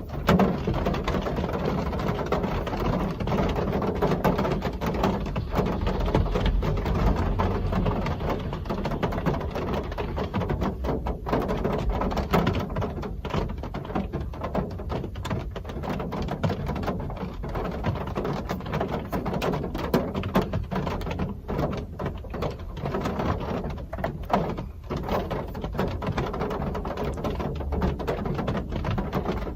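Real rain falling steadily, a continuous hiss dotted with many small drop impacts.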